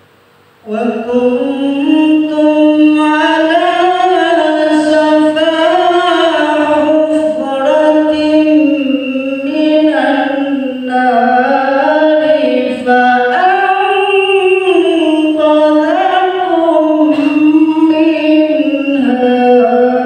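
A man's unaccompanied melodic Quran recitation (tilawah) into a microphone, with long held notes whose pitch bends and ornaments. It begins about a second in.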